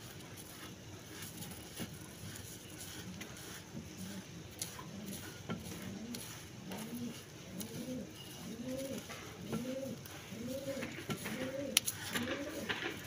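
Domestic pigeon cooing: a run of repeated low coos, each rising and falling, about three every two seconds, starting about five seconds in. A sharp click sounds near the end.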